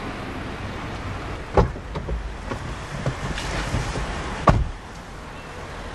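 Car passenger door: a sharp click as it is opened about a second and a half in, small knocks and rustles as someone climbs into the seat, then the door shut with a thump near the end.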